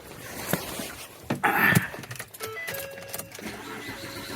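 Car keys jangling with handling clicks and knocks, a louder rustling burst about a second and a half in, and a few short steady electronic tones in the second half.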